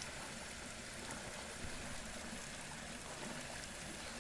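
Steady rush of running water, an even noise without distinct splashes.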